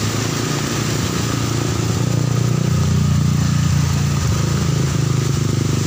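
Motor vehicle engine in street traffic, a low hum that grows louder about two seconds in and then holds steady, over a steady hiss of heavy rain on a wet road.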